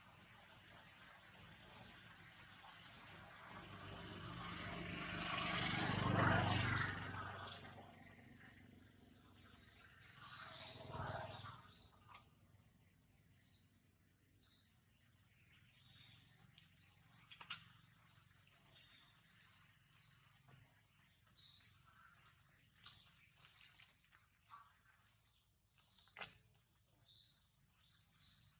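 Small birds chirping in many short, high calls that come thick and fast through the second half. A few seconds in, a broad rushing noise swells and fades over about five seconds.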